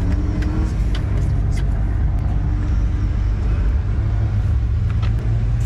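Car engine running steadily at idle, a continuous low rumble with no revving.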